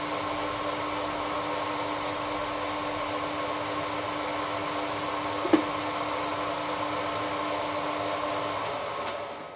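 Milling machine spindle running steadily on its inverter-driven three-phase motor and belt drive: an even mechanical hum with a steady tone, smooth and without shaking. A single sharp click about halfway through, and the sound fades out at the end.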